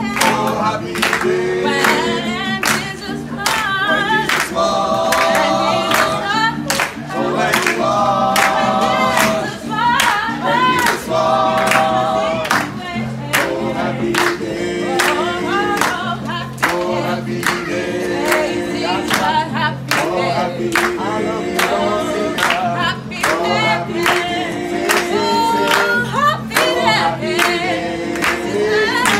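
Small gospel choir of men and women singing an upbeat song in harmony, with steady hand clapping about two claps a second.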